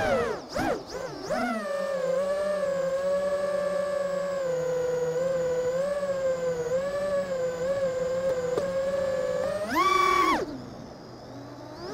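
FPV miniquad's brushless motors and propellers whining, heard from on board, the pitch rising and falling with the throttle. The pitch dips and wobbles sharply in the first second or so, holds fairly steady, jumps briefly much higher about ten seconds in, then drops away to a low, quiet hum for the last second and a half.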